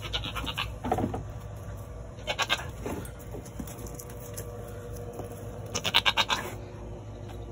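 A goat bleating several times in short, quavering calls, the loudest about six seconds in.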